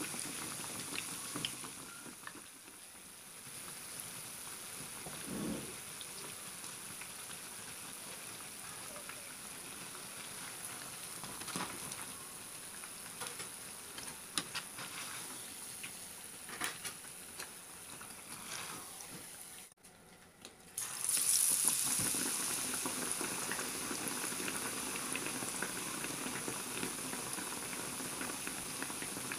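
Gram-flour-battered bread pakoras deep-frying in hot oil: a steady sizzling hiss with a few light clicks of tongs against the pan. The sound cuts out for about a second around two-thirds of the way in, then returns louder.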